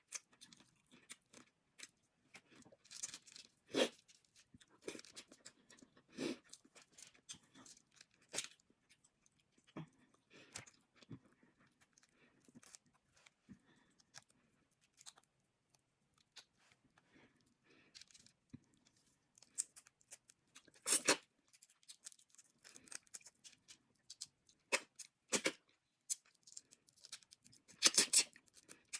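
Close-miked eating of a seafood boil: shells cracked and peeled by hand, with chewing, in scattered short snaps and clicks. The loudest cracks come about two-thirds of the way through and again near the end.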